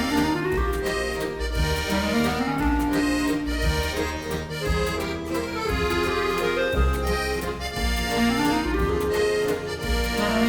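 Instrumental music led by an accordion, in a traditional style, over a regular bass pulse.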